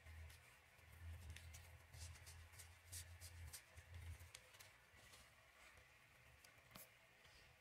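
Near silence: faint rubbing and scattered light clicks from a brake caliper piston being wiped and polished by hand, over a faint low hum.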